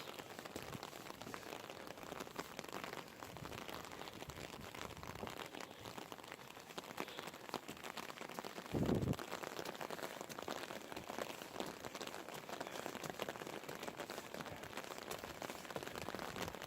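Rain falling steadily, with many small drop hits close to the microphone. A single dull thump about halfway through.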